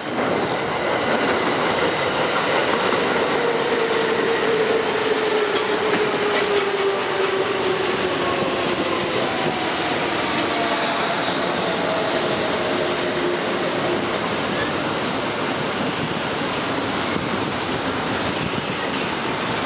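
Ten-car Kintetsu electric train of 8400 and 1233 series cars running close past at a station approach. The wheels rumble on the rails under a motor whine that falls in pitch as the train slows, going loud suddenly as the front reaches the spot.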